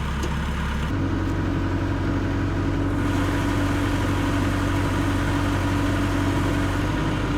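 Engine running; about a second in it is raised to a higher, steady speed and held, easing slightly near the end.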